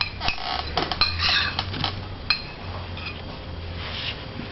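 A spoon clinking and scraping against a small dish of baby puree: a quick series of short, sharp clinks.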